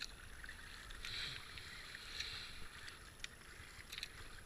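Double-bladed paddle of a racing kayak stroking through calm river water, the blades swishing in and dripping, with two louder swishes about a second apart and a few small splashes and drips.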